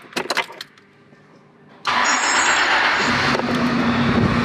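A few clicks, then a car engine is started: the starter cranks for about a second and a half, the engine catches, and it settles into a steady idle.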